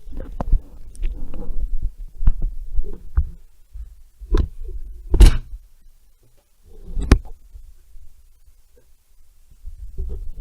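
Irregular knocks and clatter of hand tools against metal chainsaw parts during a teardown, with about five sharp knocks, the loudest about five seconds in, and low handling noise between them.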